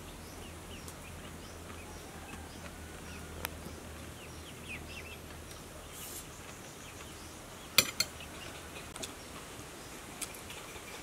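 Quiet outdoor ambience with faint bird chirps and a low hum that fades out about six seconds in. A few sharp clicks of a spoon against a plate, the loudest two close together about eight seconds in.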